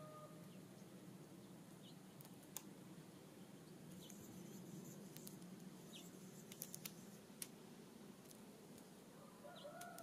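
Faint, distant rooster crowing: one crow trails off just after the start and another begins near the end. Between them come a few short, soft bird chirps and clicks.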